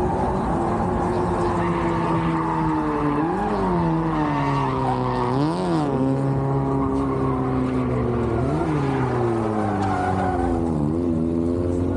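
Car engine running hard with the revs swinging: four quick blips up, each followed by a slow slide down, over a steady drone, typical of a drift car being worked around the track.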